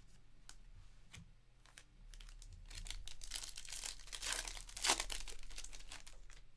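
Plastic-foil wrapper of a trading card pack torn open and crinkling in the hands, loudest about three to five seconds in. Before that, soft clicks of cards being handled.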